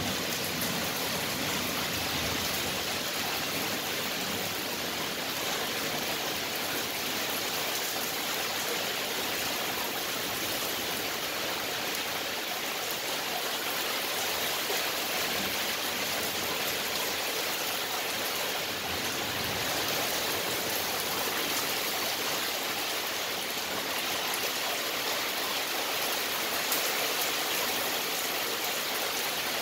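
Steady rain falling in a thunderstorm, an even hiss.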